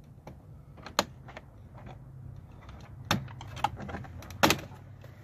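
Plastic clicks and snaps as a screwdriver pries the power-window switch panel out of a truck's door armrest: four or five sharp clicks, the loudest about four and a half seconds in. A steady low hum runs underneath.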